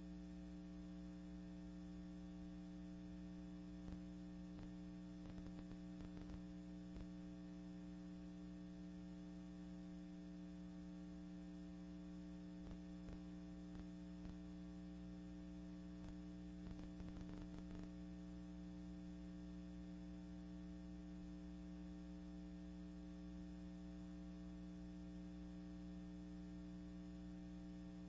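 Faint, steady electrical mains hum with a few soft crackles.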